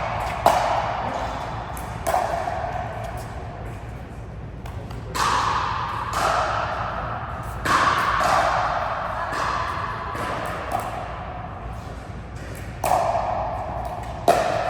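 Ball strikes in a rally, sharp knocks that ring and echo in a hard-walled court, coming about once every one to two seconds.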